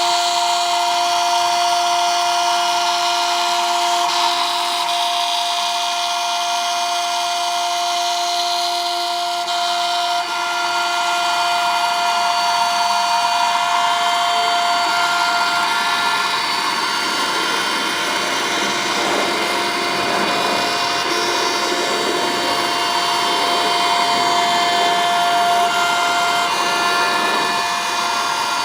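Small CNC router's spindle running with a steady high whine while it mills acrylic, under a constant hiss of cutting noise. Fainter thin tones come and go and change pitch throughout.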